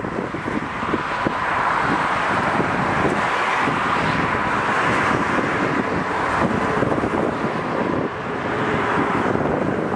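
VIA Rail F40PH-2 diesel-electric locomotive and its train approaching, a steady rushing run that swells a little towards the middle, with wind buffeting the microphone.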